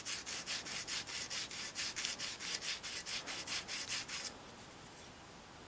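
150-grit sandpaper cupped in the palm and rubbed back and forth over the steel ball end of an Estwing ball peen hammer head: a quick, even rasping of about four to five strokes a second that stops about four seconds in.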